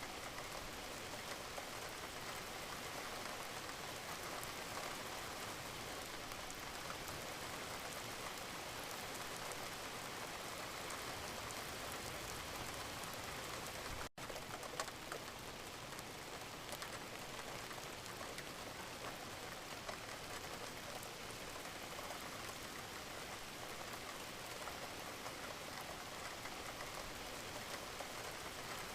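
Steady rain falling, an even hiss with many small drop ticks. The sound cuts out for an instant about halfway through.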